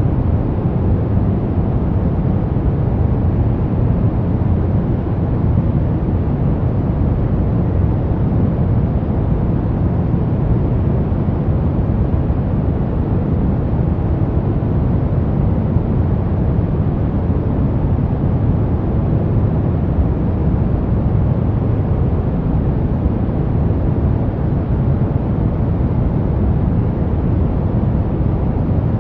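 Brown noise: a steady, unchanging deep rumbling hiss, heaviest in the bass and with little treble.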